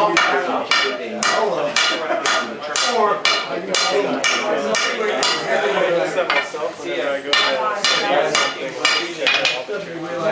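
Blacksmith's hammer striking metal on an anvil in a steady series of ringing blows, about two a second, with a short pause partway through.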